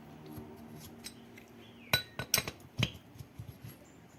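Light metallic clinks of tools and metal parts being handled, with three sharp clinks about two seconds in and a few softer ticks after.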